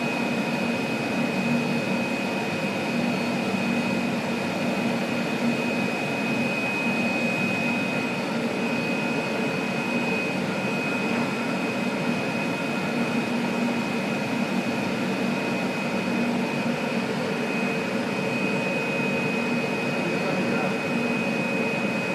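iECHO BK digital foam-cutting machine running with a steady whirring hum and a constant high whine.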